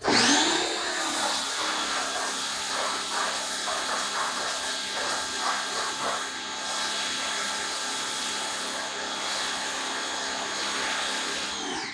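Pressure washer running with a Chemical Guys Big Mouth foam cannon spraying thick foam: a steady hum with a spray hiss that starts suddenly, its pitch rising briefly at first, and cuts off suddenly near the end.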